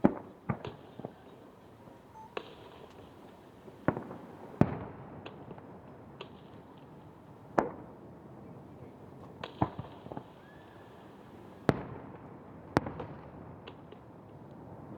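Aerial firework shells bursting over the sea: a string of sharp bangs at uneven intervals, one to three seconds apart, some in quick pairs, several with a short rolling tail.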